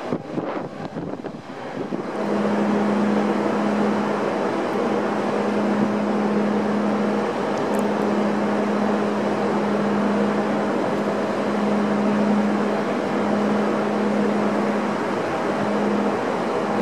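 Wind on the microphone, then from about two seconds in the Salish Eagle ferry's engines and propulsion run with a loud, even drone and a constant low hum while the ship manoeuvres into its berth.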